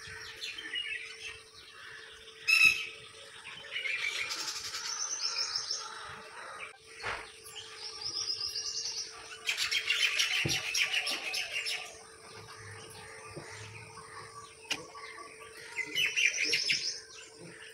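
Birds chirping in several bursts of quick, high trilled calls, with pauses between them.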